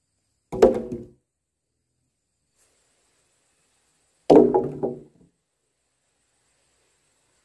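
Two wooden logs dropped one after the other onto a pile of logs, each landing with a heavy knock and a brief clatter of wood on wood.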